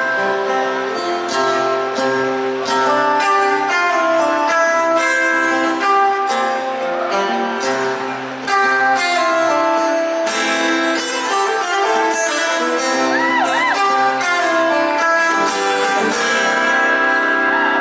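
A band playing an instrumental passage led by plucked acoustic guitar, with picked melody notes over a steady accompaniment.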